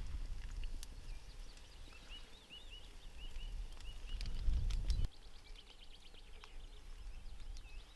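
A bird singing a quick series of short, repeated arched notes, about two or three a second, over a low rumble that stops suddenly about five seconds in.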